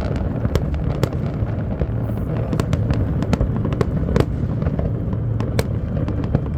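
Large fireworks display: many sharp bangs and crackling pops, several a second at irregular spacing, over a continuous low rumble of distant detonations.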